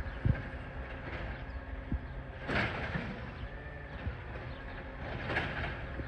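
Garbage truck's diesel engine running steadily, with a couple of dull knocks and two short, sharp hisses of air about two and a half and five seconds in.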